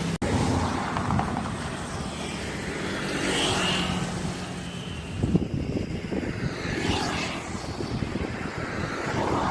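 Road traffic passing close by, with two vehicles going past about three and a half and seven seconds in. The sound drops out briefly just after the start.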